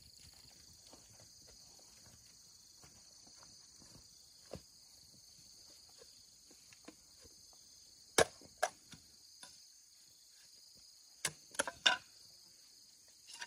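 Six sharp knocks: one about four seconds in, two close together past the middle, then a quick run of three near the end. Under them runs a steady, high-pitched insect chirring.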